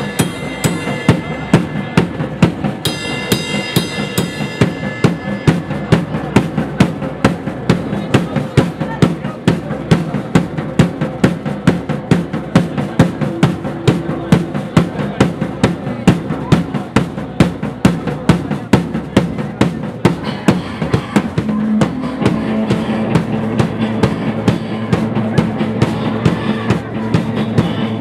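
Live rock band playing loud, a drum kit hitting a steady, regular beat over guitar noise. A low sustained note comes in about three-quarters of the way through.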